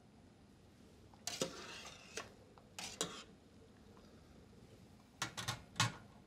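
Wire spider skimmer stirring dry pasta in a stainless steel stockpot, the metal mesh scraping and clinking against the pot in short bursts, with a quick run of clinks near the end.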